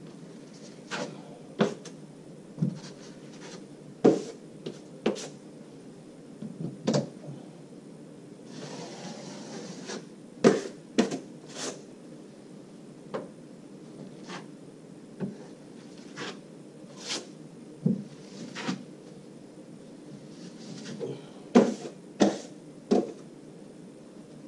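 Steel drywall trowel spreading joint compound on plasterboard joints: scattered short clacks and knocks of the metal tool, with a longer scrape of the blade along the wall about nine seconds in.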